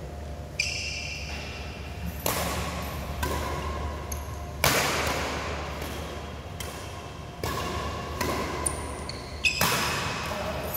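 Badminton rackets striking a shuttlecock back and forth in a rally: sharp hits about every one to two seconds, each with a short echo from the hall.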